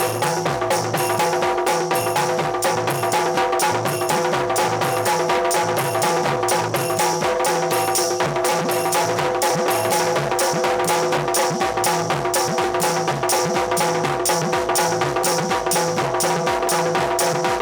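Instrumental passage of Bundeli rai folk music: a fast, even drum beat under steady held melody notes.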